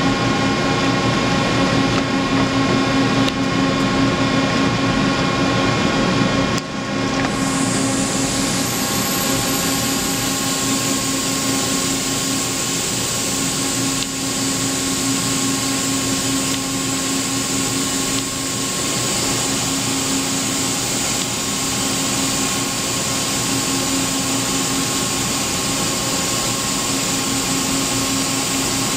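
Mazak ULTRA 650 CNC lathe running with a steady mechanical hum. After a brief dip about six seconds in, a thin high whine rises in pitch and then holds steady.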